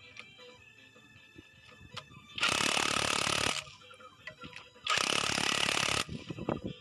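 Two bursts of loud mechanical noise from a power tool, each about a second long and about two and a half seconds apart, with faint clicks and taps between them.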